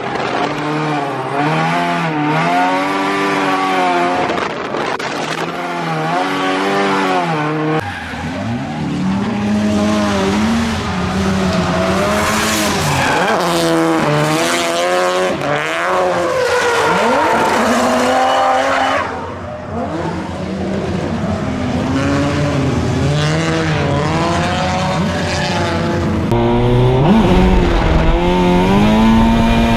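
Nissan S13 drift car's SR20 four-cylinder engine revving hard and falling back over and over through a drift run, with tyres squealing. The sound shifts abruptly twice, about eight seconds in and near the end, between the muffled in-cabin sound and the open sound from the trackside.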